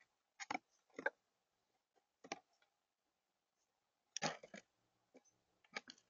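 Irregular sharp taps and knocks, about eight in all, from a blue jay's bill and feet on the hard feeder platform as it picks at seeds, with a longer scuffling clatter about four seconds in.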